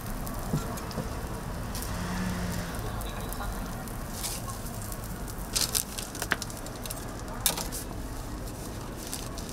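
Toast sandwich frying on an oiled flat-top griddle, a steady sizzle with crackling. A few sharper clicks stand out a little past halfway.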